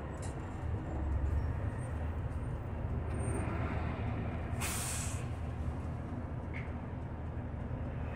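Inside a city bus under way: steady low engine and road rumble, with one short hiss of air about halfway through.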